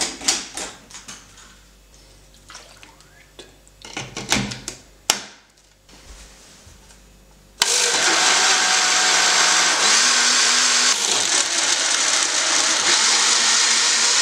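Smoothie-maker blender: a few sharp plastic clicks and knocks as the blade lid is screwed on and the jar is set on the motor base. About eight seconds in, the motor starts suddenly and runs at a steady loud pitch, blending chopped ginger in juice.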